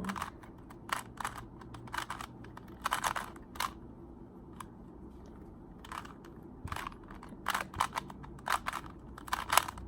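Rubik's cube being turned by hand: sharp plastic clicks and clacks as its layers rotate, in quick runs of several turns with short pauses between.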